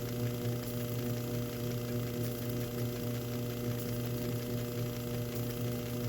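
Metal lathe running at slow speed with a steady motor hum while it hobs teeth into an extruder gear with a tap, with a faint tick about every second and a half.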